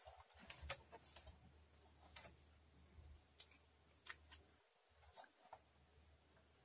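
Near silence broken by faint, irregular clicks and light scrapes of a scalpel blade working at the plastic key tab of a CPU socket.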